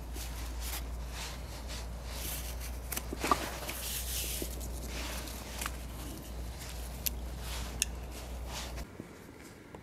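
Rustling and scraping of cord and clothing as a rope is handled, with a few sharp clicks, over a steady low rumble that cuts off abruptly near the end.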